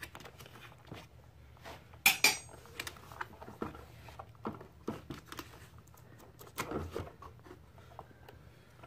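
Scattered clicks, knocks and clatter of hands unplugging an electrical connector and working an ATV's airbox loose from the frame, with a sharper clack about two seconds in.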